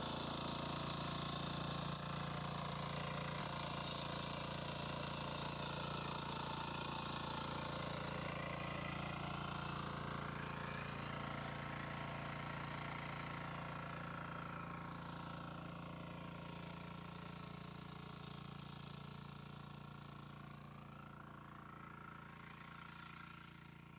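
Shrachi power weeder's engine running steadily while its tines work the soil between crop rows, growing fainter over the second half.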